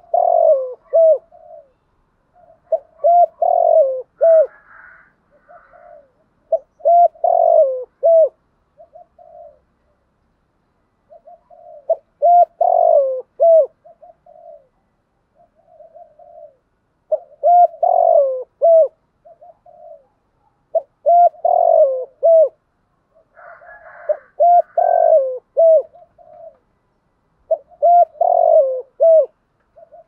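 Spotted dove cooing: a phrase of several short coo notes with one louder falling note, repeated about eight times, every three to five seconds.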